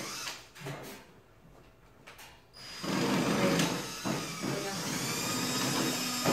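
Electric hand drill boring a hole for a mug hook in the mug holder; after a quiet stretch with a couple of short knocks, the drill starts about three seconds in and runs steadily.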